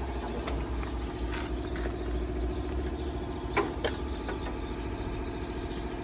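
An engine idling steadily, with two sharp clicks a little past the middle.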